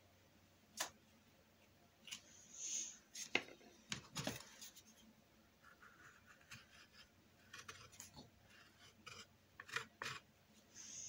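Faint scratchy strokes of a paintbrush working acrylic paint on the painting surface, with scattered light clicks and knocks of painting tools.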